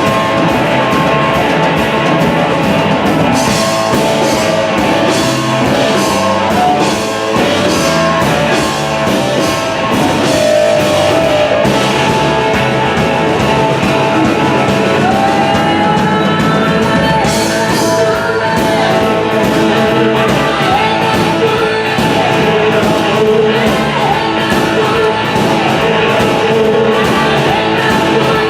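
A blues-rock band playing a boogie, with electric guitar over a steady, driving drum beat. A lead line bends up and down in pitch around the middle.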